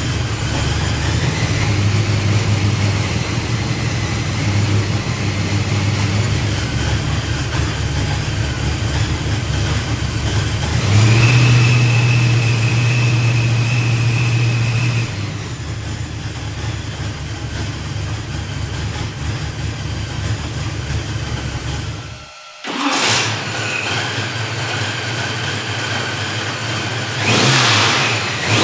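Supercharged V8 with a blow-through carburetor running on an engine dyno at a steady fast idle. It steps up to a higher, louder speed about eleven seconds in and settles back a few seconds later, then gets a quick blip of the throttle near the end.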